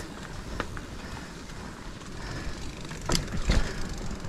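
Mountain bike rolling over a dirt trail: a steady rumble of tyres on dirt, with the bike rattling and knocking over bumps, the loudest knocks about three seconds in.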